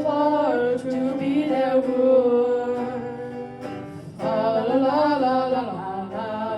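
A singing voice carrying a verse of a traditional folk ballad, with instrumental accompaniment.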